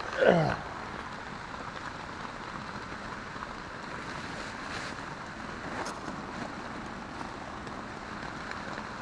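Heavy rain falling on a tent, a steady hiss. About a third of a second in, a brief louder sound slides down in pitch.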